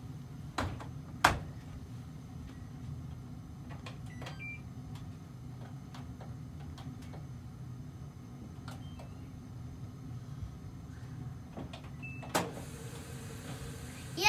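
A front-loading washing machine's door pushed shut with two sharp clicks, the second the louder, then light taps and a few short electronic beeps from its control panel as buttons are pressed, over a steady low hum.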